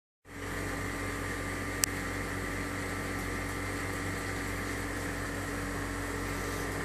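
Steady mechanical hum with a few held tones, and a single sharp click about two seconds in.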